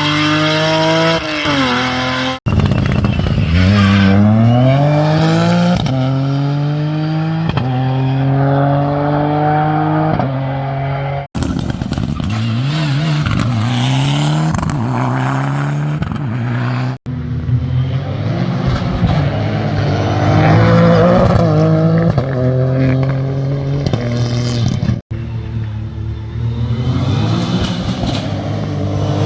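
Rally cars at full throttle, engines revving hard up through the gears with a quick drop in pitch at each shift. Several short clips follow one another with abrupt cuts between them.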